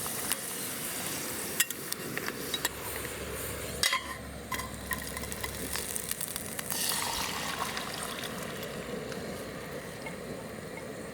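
Small pieces of bird breast frying in hot oil in a pan, a steady sizzle, with several sharp clicks and knocks of a utensil against the pan.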